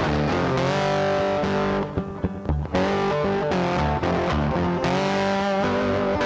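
Intro music led by electric guitar with some distortion and bass, with a brief break about two seconds in.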